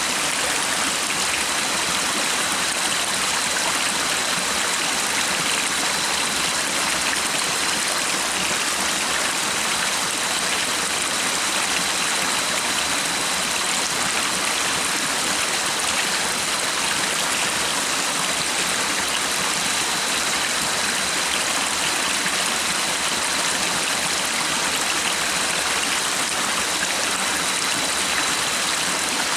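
Stream water rushing and splashing in an even, unbroken flow.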